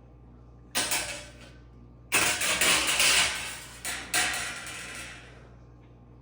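Thin sheet-metal shielding from an oven door scraping and rattling as it is peeled back and pulled out: one short burst about a second in, then a longer, louder stretch in three surges from about two to five seconds in.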